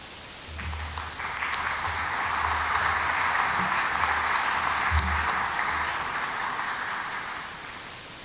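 Audience applauding, building about a second in and dying away near the end.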